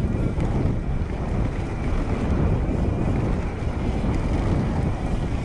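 Steady wind noise buffeting the microphone over the low rumble of mountain bike tyres rolling on a muddy trail.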